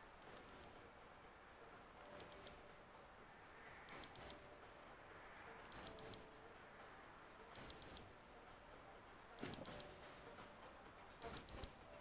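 ATORCH USB-C power meter beeping faintly: a pair of short high beeps about every two seconds, seven pairs in all, as the meter keeps resetting on the laptop's unstable charging connection.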